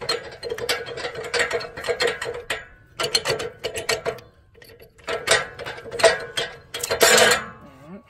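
Steel hook and handle of a homemade drill-powered log turner rattling and clanking as they are worked by hand, in several irregular bursts, the loudest near the end.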